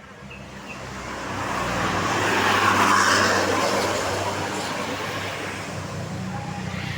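A large bus passing close by: engine and tyre noise swell to a peak about three seconds in, then fade away.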